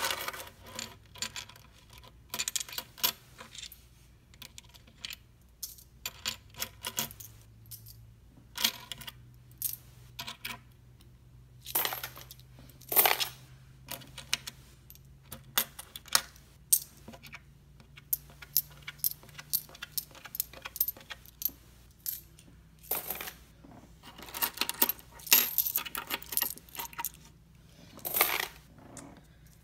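Lincoln pennies clicking and clinking against each other and a wooden tabletop in many short, irregular clusters as they are handled and gathered up.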